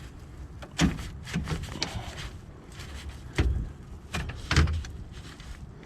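A handful of sharp knocks and clunks, about six spread out, with no engine cranking or running.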